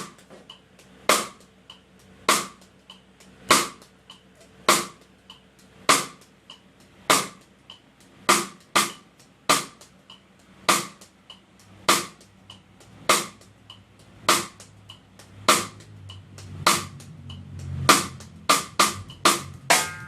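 High-tuned reggae snare drum struck at a slow, even pace, about one hit a second, with a quicker flurry of hits near the end. Faint ticks sound between the strikes, and a low steady tone runs underneath in the second half.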